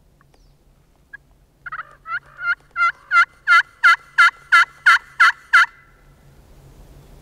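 A run of about a dozen hen turkey yelps on a hunter's turkey call, evenly spaced at about three a second, growing louder over the first few notes. It is a locator call sent out to make a gobbler answer.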